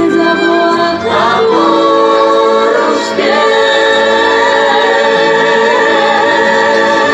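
Live Romani (Gypsy) band song on an amplified stage: several voices sing together, holding long notes that shift to new notes about one and three seconds in.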